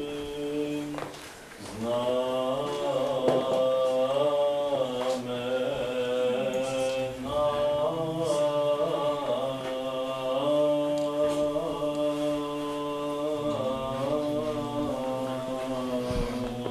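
Slow Eastern Orthodox liturgical chant, sung in long held notes that move slowly in pitch, with a brief pause between phrases near the start. This is the singing that accompanies Holy Communion.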